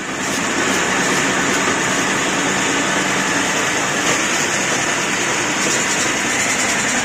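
Commercial spice-grinding mill running steadily, grinding dried red chillies and roasted spices into chilli powder. The loud, even machine noise rises in at the start and holds steady.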